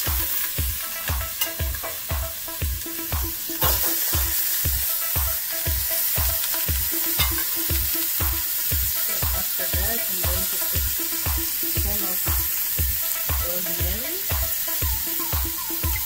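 Two legs of lamb searing in hot oil in a stainless steel pot, a steady sizzle. Background music with a steady beat of about two thumps a second plays over it.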